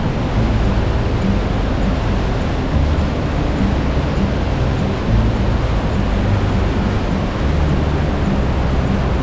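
Steady roar of Trümmelbach Falls: glacier meltwater rushing and crashing down through the rock gorge inside the mountain, loud and even, with a deep rumble beneath.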